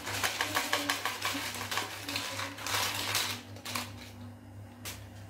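Crisp, freshly fried potato chips rattling against each other and the wire of a mesh skimmer as they are shaken and tipped onto a plate: a quick run of small dry clicks that thins out after about three and a half seconds, with one sharper click near the end. The dry, brittle rattle is the sign that the chips have fried fully crisp.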